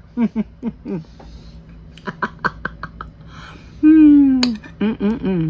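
Wordless sounds of enjoyment while tasting ice cream: short chuckling vocal sounds, then one long falling 'mmm' about four seconds in.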